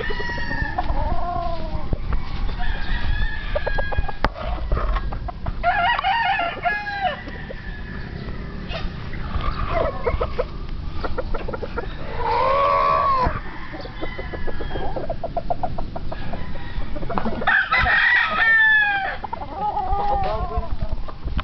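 Young gamefowl roosters (stags) crowing and clucking, with several birds calling one after another. There is a long crow about halfway through and a loud one near the end.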